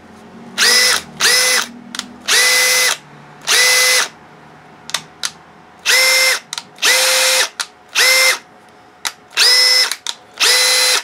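Makita XFD11 18V brushless cordless drill-driver run in about nine short trigger bursts, each spinning up to a steady high whine and winding down, with a few small clicks between bursts. It is a test run of the drill after cleaning and reassembly.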